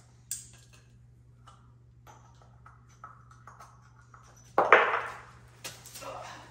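Hand work on plywood with small metal parts: a sharp metallic ping just after the start, light taps and clicks, then a louder knock and scrape about four and a half seconds in, followed by shuffling.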